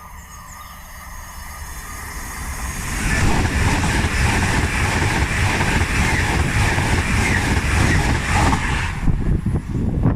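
LNER Inverness-to-London express, a Class 800 Azuma, passing at speed: the rumble builds over about three seconds as it approaches, then a loud, steady rush of wheels and carriages for about six seconds, easing off near the end as the train goes by.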